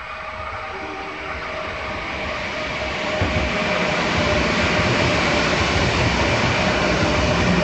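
Kintetsu 6620 series electric train passing at speed. The rumble of its wheels on the rails grows louder over the first few seconds as it approaches, then holds steady as the cars run by.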